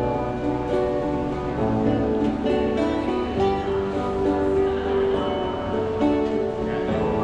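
Acoustic guitar played live by a street musician, strummed and picked in a steady run of notes.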